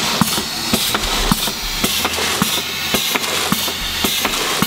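CPM 500 pneumatic piston filler running in automatic with its flow controls opened for a faster fill: a steady hiss of air and liquid, with frequent sharp clicks from the cycling valves and piston.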